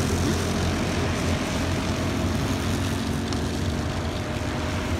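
Racing kart engines running on the circuit, a steady engine drone with a faint whine joining about two seconds in as karts come round the bend.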